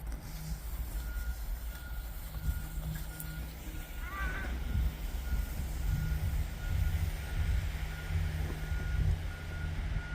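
A heavy vehicle's reversing alarm beeping steadily at about two beeps a second over a low engine rumble. A short high call cuts in about four seconds in.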